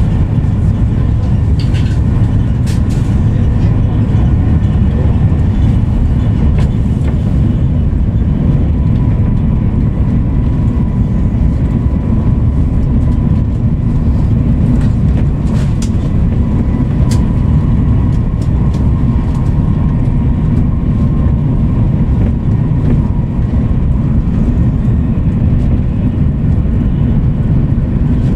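Interior noise of an Italo high-speed train running at speed: a loud, steady low rumble with a faint steady whine through the middle and a few light ticks.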